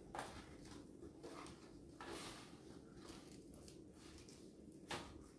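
Quiet room with a few faint clicks and scrapes of a knife and utensils on a plate as a croffle is cut: one right at the start, one at about two seconds and one near the end.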